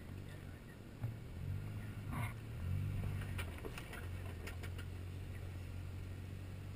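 Jeep Wrangler JK engine running at low revs as it crawls over loose rock, the note rising and easing in short blips before settling steady. Stones click and knock under the tires, with a sharper knock about a second in.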